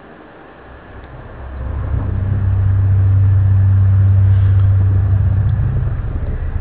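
Loud, low droning hum of the kind passed around as a mysterious 'strange sound' from the sky, swelling in over the first two seconds and then holding one steady pitch.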